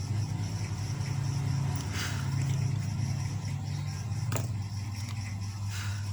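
A steady low motor drone runs throughout, with a single sharp click a little past four seconds in.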